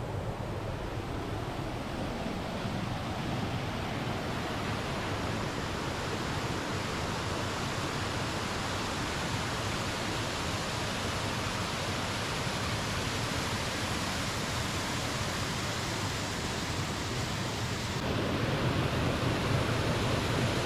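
Waterfall water on Gorton Creek rushing steadily, a continuous roar of falling water that grows a little louder in the last few seconds.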